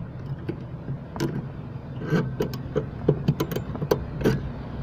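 Irregular sharp metallic clicks and taps of a hand tool working on the clutch pedal's pushrod pin, over a steady low hum.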